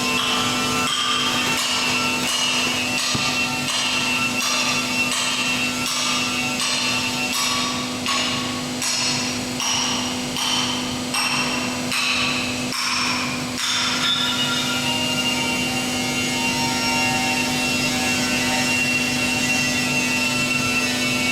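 Small pet-bedding baler running with a steady motor hum and a rapid series of regular knocks, about one and a half a second, as it works. The knocking stops about two-thirds of the way through and only the steady running remains.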